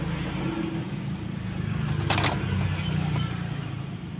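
Low, steady engine rumble of a motor vehicle in the background, dying away near the end, with one brief scrape or click about two seconds in.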